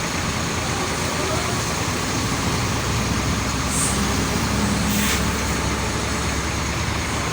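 Bus engine running at a standstill amid steady street traffic noise, with a short high hiss about four seconds in.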